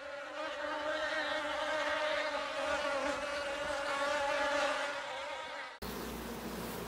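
A bee's buzz, one steady drone that wavers slightly in pitch, swells up over the first second and cuts off abruptly just before the end. It gives way to the hum of honeybees over an open hive, under a steady hiss and low rumble.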